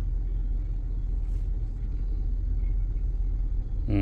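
The 4.6-litre V8 of a 2009 Ford F-150 idling steadily, a low even rumble.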